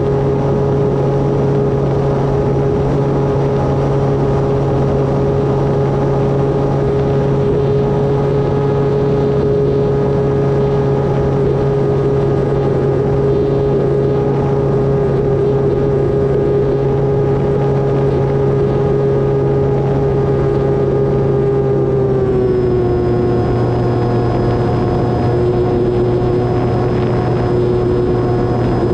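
Electric brushless motor and propeller of an E-flite Turbo Timber Evolution RC plane whining steadily in flight over a rushing noise. About 22 seconds in, the pitch steps down a little as the motor slows.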